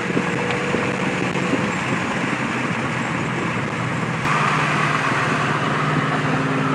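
Car engine hum and wind noise heard from inside a car's cabin, which get suddenly louder about four seconds in.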